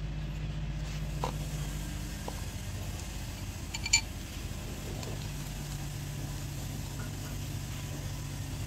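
A steady low mechanical hum, with a single ringing metal clink about four seconds in.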